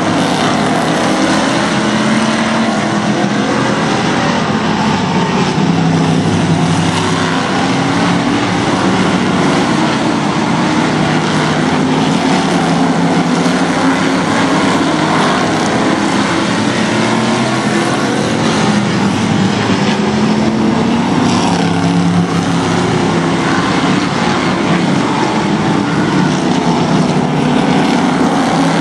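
A field of short-track stock cars racing around an oval: their engines make a continuous loud drone, with pitches rising and falling as cars accelerate out of the turns and sweep past.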